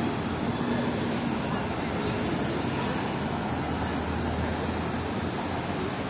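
City street traffic at a junction: cars and a double-decker bus running by, a steady low engine hum under an even wash of road noise.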